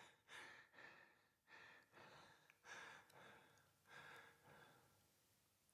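Near silence with a few faint breaths, spaced about a second or so apart.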